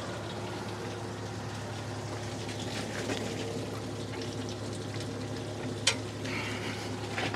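Water running and splashing out of a cementing pump truck's opened drain valves, over a steady low hum, with one sharp click about six seconds in as another drain valve is opened.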